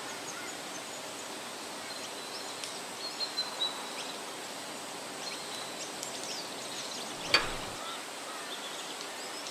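Outdoor ambience: a steady hiss of background noise with birds chirping, a few calls about three seconds in, and one short sharp sound about seven seconds in.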